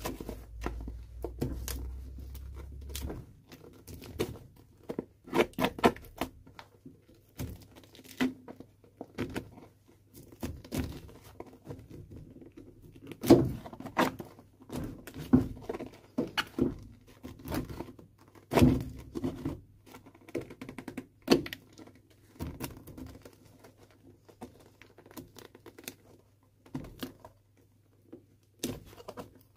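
Knife blade scraping old crumbly cork filler out of a welted shoe's sole cavity, in irregular short strokes, a few of them sharper and louder than the rest.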